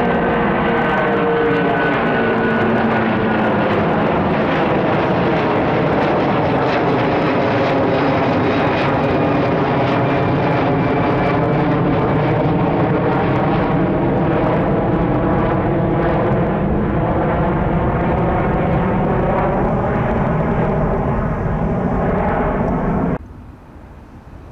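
Airbus A330 twin-jet airliner climbing out overhead after takeoff: a steady, loud jet roar with whining tones that drop slightly in pitch as it passes, and a slowly sweeping, phasing quality. The sound cuts off abruptly near the end.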